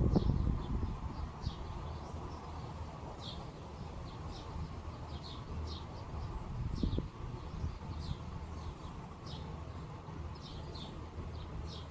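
Small birds chirping: many short, high chirps at irregular intervals, over a steady low rumble. A low thump at the very start, and a smaller one about seven seconds in.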